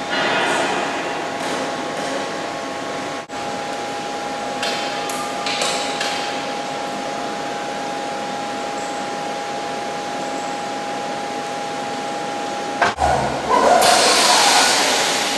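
Ficep Excalibur CNC steel-beam drilling line running: a steady mechanical hiss with a constant whine. Near the end it turns louder and rougher as the machine works.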